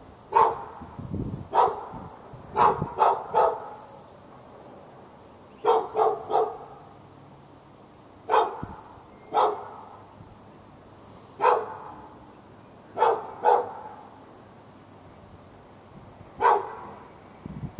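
A dog barking repeatedly: sharp single barks and quick runs of two or three, spaced a second to a few seconds apart, fourteen or so in all.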